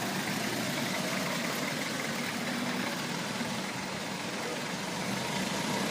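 Steady noise of road traffic, with car engines running and idling.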